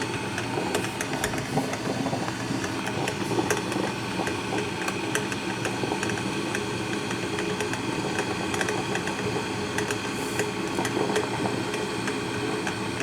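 A steady machine hum with light scattered ticks.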